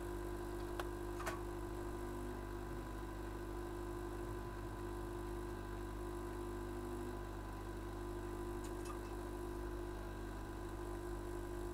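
Steady electrical hum from workbench equipment, with a couple of faint clicks about a second in.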